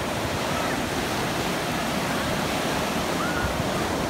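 Steady rush of ocean surf on the shore, mixed with wind buffeting the microphone.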